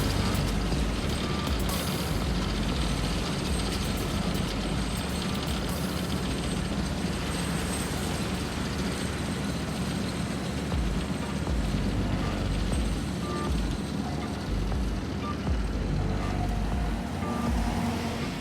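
Diesel engines of heavy asphalt-paving machinery running steadily, with short electronic warning beeps from a reversing alarm now and then.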